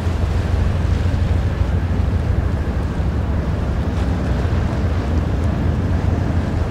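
Steady low rumble of a container ship passing close by, with the wash of water along its hull and wind buffeting the microphone.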